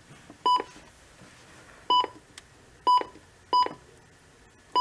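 Midland WR120 weather radio giving a short electronic button beep at each press of its arrow keys, five beeps spaced unevenly.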